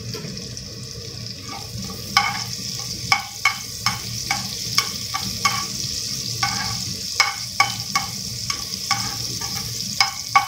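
Garlic paste and chopped green chillies sizzling in hot oil in a metal frying pan while a perforated spatula stirs them, scraping and tapping against the pan. The taps start about two seconds in and come irregularly, one or two a second, over a steady sizzle. The garlic is being fried until brown to take away its raw taste.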